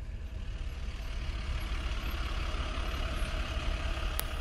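A road vehicle drawing closer: a low rumble with road noise that grows steadily louder. A sharp click sounds near the end.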